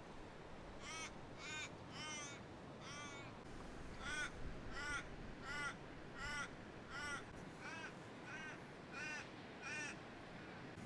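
A bird calling over and over: about a dozen short, arched calls, roughly one every two-thirds of a second, in a crow-like caw series.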